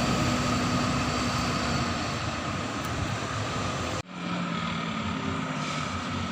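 Tour bus driving past: engine and road noise with a steady low hum, no horn. The sound cuts out abruptly about four seconds in and comes back slightly quieter.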